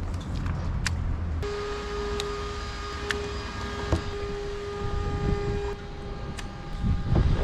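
A motor vehicle running, a steady low rumble. About a second and a half in, a steady hum of several pitches sets in and lasts about four seconds, with a few sharp clicks along the way.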